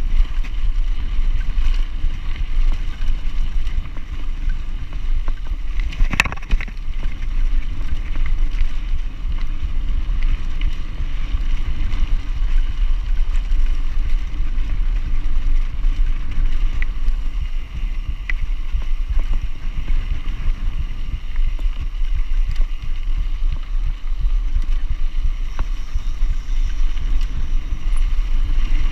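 Wind buffeting the microphone of a camera on a mountain bike, over a steady low rumble of the bike rolling along a dirt track. One sharp knock about six seconds in.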